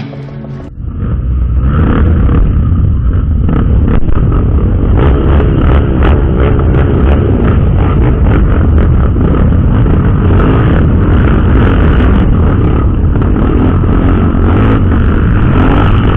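Honda XR 250 Tornado single-cylinder trail motorcycle running under way on a dirt trail, the engine sound mixed with heavy wind rumble on the microphone and scattered clicks and knocks. It starts about a second in and then stays loud and steady.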